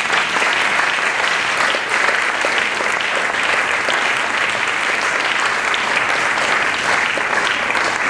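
Audience applauding steadily in a hall, a dense patter of many hands clapping.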